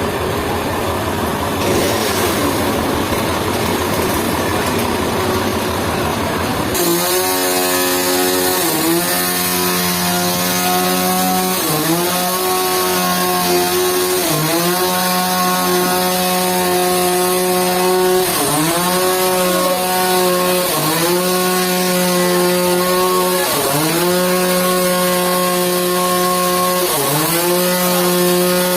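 Sawmill power saw cutting wood. At first there is a rough, noisy cutting sound. About seven seconds in it changes abruptly to a steady machine hum that dips briefly in pitch and recovers every two to three seconds.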